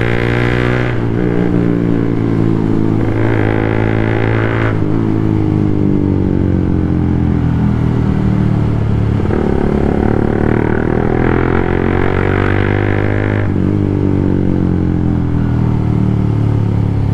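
Motorcycle engine running through its exhaust with a steady low drone, the revs slowly rising and falling several times.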